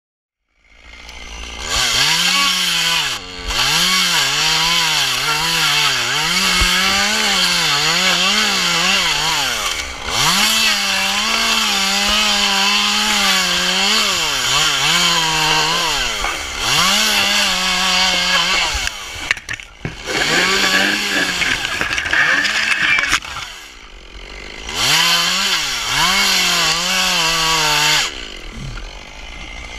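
Small two-stroke chainsaw cutting dead fronds from a Mexican fan palm. The engine revs up and down over and over and drops back toward idle several times between cuts.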